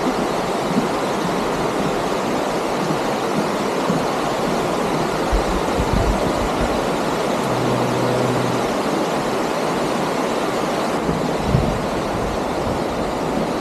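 Rushing water: a steady, even rush of flowing water with no breaks.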